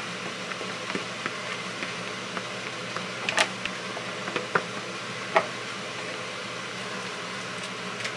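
Vegetables and shrimp being tipped into a pot and stir-fried with a silicone spatula: a steady hiss with scattered light taps and clicks, the sharpest about three and a half and five and a half seconds in.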